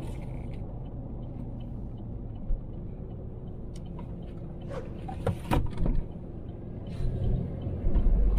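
Colorado 4x4 driving along, a steady low rumble of engine and road noise, with a few sharp knocks or rattles about five to seven seconds in. The rumble grows louder near the end.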